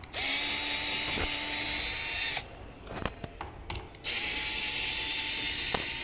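Cordless drill-driver backing out the screws of an electric scooter's cover plate: two runs of about two seconds each, the motor whining up to a steady pitch and holding it. A few small clicks come in the pause between the runs.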